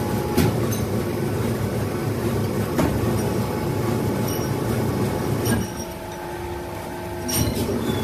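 Thread-rolling machine running as a steel rod is fed between its roller dies: a steady heavy mechanical rumble with occasional metal clinks. About two-thirds of the way through the rumble drops to a quieter steady hum, and a metal clank sounds near the end.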